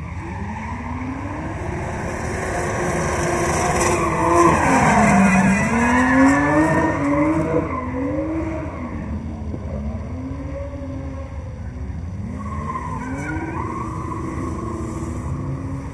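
A drift car's engine revving up and down again and again, with tyre squeal. It grows loudest about four to seven seconds in as the car comes closest, then eases back.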